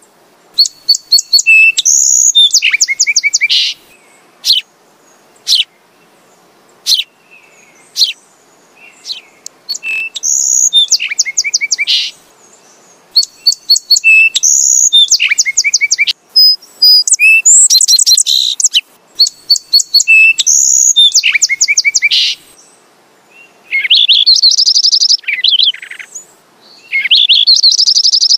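Sparrows chirping: fast runs of high, sharp chirps lasting one to three seconds, broken by short pauses and single chirps.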